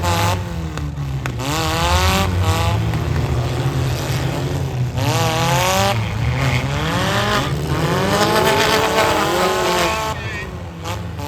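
Demolition derby car engines revving hard over a steady low rumble from other running cars. The engine pitch climbs and drops back several times.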